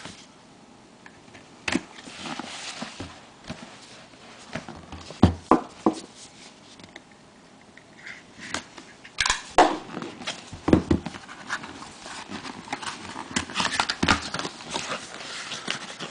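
Hands handling a sealed trading-card box and its wrapping: scattered taps and knocks, with crinkly rustling that gets busier in the second half.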